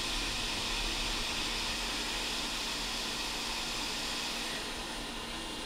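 Heat gun blowing a steady rush of hot air onto a flux-covered chip on an SSD circuit board, heating the solder so the burnt DC-DC converter chip can be lifted off.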